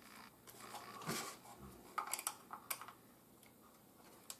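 A few faint clicks and light taps of a small plastic RC toy car being handled.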